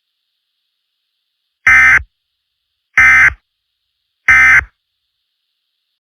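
Emergency Alert System end-of-message tones: three short, identical bursts of buzzing SAME digital data, about a second and a half apart, marking the end of the alert.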